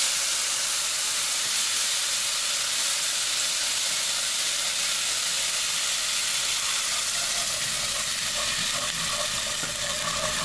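Cold water hitting a hot pot of browned beef drippings, sizzling and hissing loudly as it flashes to steam while deglazing the pan. The hiss holds steady, easing slightly near the end as a wire whisk starts stirring.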